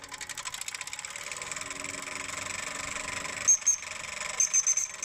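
Small hobby steam engine running with a fast, even ticking, driving a small DC motor as a generator that adds a steady whine; the engine is running low on steam as its fire dies. Several short high-pitched chirps about three and a half seconds in and again near the end.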